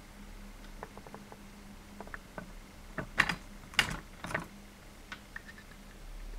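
A string of irregular light clicks and taps, sparse at first, with a louder cluster of sharper clicks a little past the middle, over a faint steady hum: handling noise from a handheld camera as it is moved.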